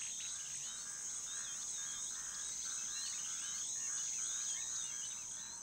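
Insects shrilling in a steady high drone, with a lower pulsing chirp repeating about twice a second and small birds twittering over it.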